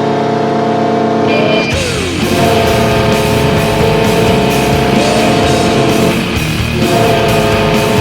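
Kahlenberg Q-4 air goal horn blaring a steady chord throughout. A loud rock goal song with a pounding drum beat kicks in under it about a second and a half in.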